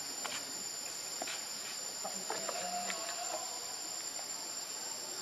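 Steady insect chorus of crickets or cicadas, a continuous high-pitched drone with a thin, even whine on top. A few faint ticks sound through it.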